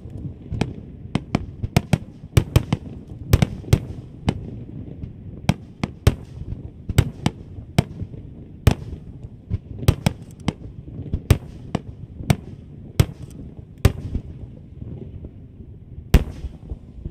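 Aerial fireworks shells bursting in a long, irregular run of sharp bangs, one or two a second, over a low rumble. The bangs thin out near the end, then one last loud bang.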